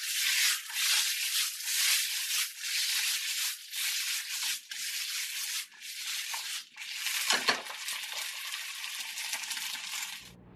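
Chicken breast and sliced vegetables sizzling in a nonstick frying pan as the pan is shaken and tossed over a gas flame, the sizzle surging and dipping with each toss. There is one low knock about seven seconds in, and the sizzle cuts off near the end.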